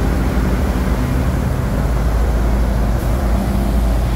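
Heavy trucks' diesel engines running as they drive through deep floodwater, with water surging and splashing around their wheels in a steady low rumble.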